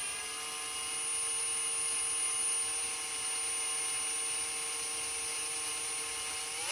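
Drill running steadily in reverse, spinning an Astro Pneumatic ADN38 rivet nut adapter to back out a rivet nut; a steady motor whine that winds down in pitch as it stops at the end.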